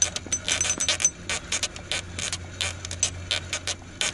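Fishing reel clicking rapidly and unevenly as it is cranked, reeling in a hooked carp, over a steady low hum.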